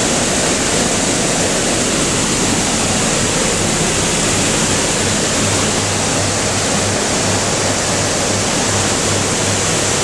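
Water cascading over the top of a canal lock's upper gates into the chamber: a loud, steady rush of falling water.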